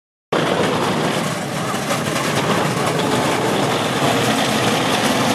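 Steady outdoor ambience: a continuous wash of traffic and crowd noise with faint voices of passers-by.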